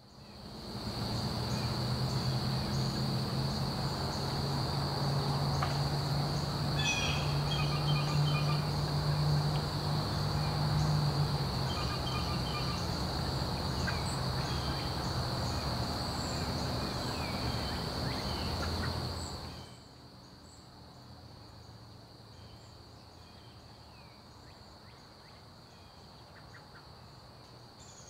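Outdoor ambience: insects drone steadily with scattered bird chirps over a low hum, fading in at the start. About two-thirds of the way through it cuts to a much quieter, fainter background with only occasional faint chirps.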